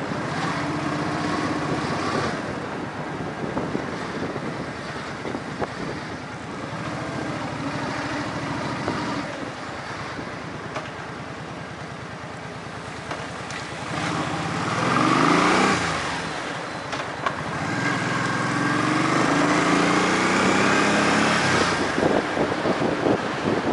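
Motor vehicle engines passing and accelerating. The loudest moment is one vehicle going by, its engine note dropping sharply in pitch, about two-thirds of the way in. Near the end another engine revs up, rising in pitch.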